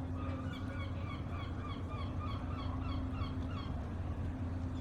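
Large harbour ambience: a steady low drone, as of ship engines and machinery, under a bird giving a quick run of short repeated calls, about three a second, that stops around three-quarters of the way through.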